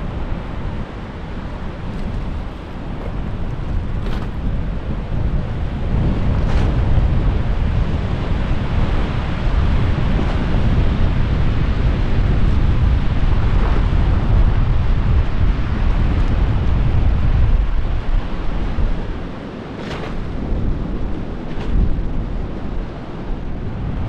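Strong wind buffeting the microphone, a deep gusty rumble that swells about a quarter of the way in and eases briefly near the end.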